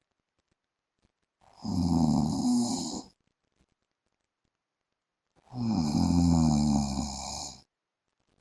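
A man snoring in his sleep: two long snores about four seconds apart, each lasting under two seconds, with a wavering, voice-like pitch.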